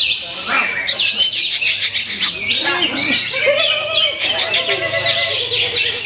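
Greater green leafbird (cucak hijau) singing a fast, unbroken run of high chirps, trills and whistles.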